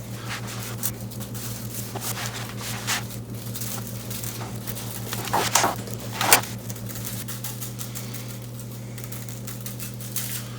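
Dry rub being shaken onto a raw pork loin and worked in by hand: a run of irregular soft scratchy strokes, two louder ones around the middle, over a steady low hum.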